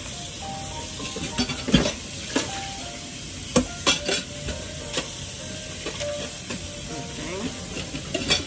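Tap water running at the kitchen sink as a raw steak is rinsed under it, with a few sharp knocks and clatters from handling about two, three and a half to four, and five seconds in, and once more near the end.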